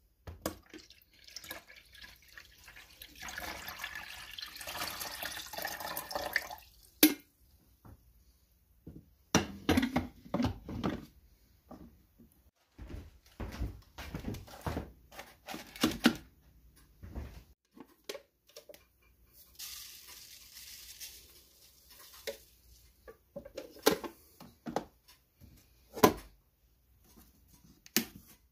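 Water poured from the glass carafe into a drip coffee maker's reservoir for a few seconds, among sharp clicks and knocks of the plastic lid and carafe being handled. A shorter hiss follows later, and the machine's power button is clicked near the end.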